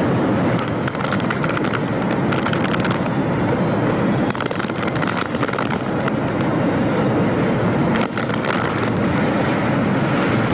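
Steady, loud rush of cyclone-force wind and heavy rain, with the wind buffeting the microphone.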